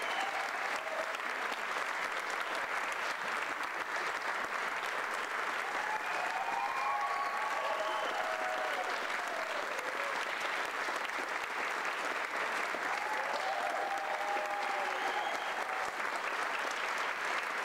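Theatre audience applauding steadily as the dancers bow. A few voices call out above the clapping about six seconds in and again about thirteen seconds in.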